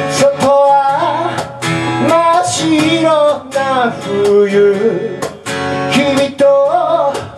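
A man singing while strumming a steel-string acoustic guitar, with strums at a steady pulse under the voice. The guitar is picked up by a microphone rather than its own pickup, which is out of order.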